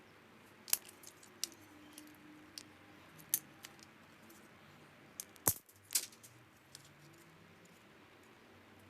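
Sharp, scattered clicks and clinks of small metal parts and hand tools being handled while a VCR is taken apart by hand. The two loudest come close together about five and a half and six seconds in.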